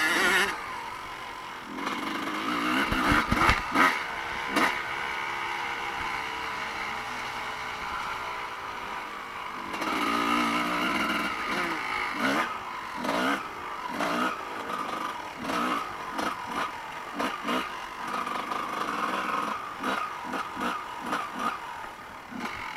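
Evo-class motocross bike engine revving up and down under changing throttle, with short blips and knocks and clatter among them.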